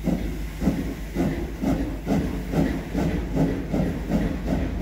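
Pt47 steam locomotive pulling away, its exhaust chuffing about two beats a second and gradually quickening as it gathers speed, with steam hissing.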